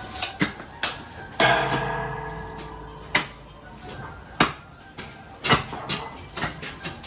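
Irregular metallic knocks and clanks from building work. One loud clang about a second and a half in rings on for more than a second.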